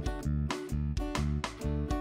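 Background music with a steady beat of short, repeated notes that each fade quickly.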